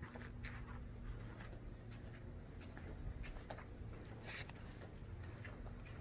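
Faint handling and movement noise: scattered light scuffs and clicks, with a sharper scratchy rustle about four and a half seconds in, over a low steady hum.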